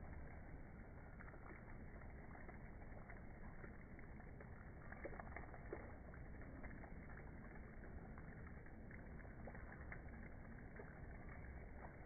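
Faint, muffled water splashing from a street fountain, with scattered small ticks.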